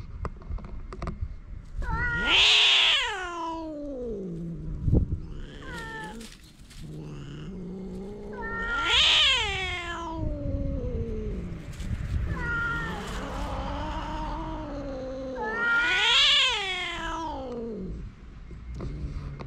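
Stray cats caterwauling at each other in a fight standoff: long drawn-out yowls that rise and fall in pitch. The three loudest come about seven seconds apart, with quieter yowls between them.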